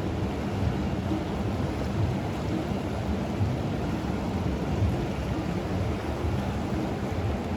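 Steady low rushing rumble of the Ganga's flowing water, mixed with wind buffeting the microphone.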